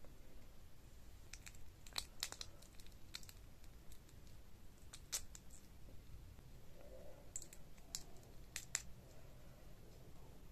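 Cooked shrimp shells being cracked and peeled by fingers: scattered sharp clicks and crinkles, the loudest about two seconds in, around five seconds and twice near nine seconds.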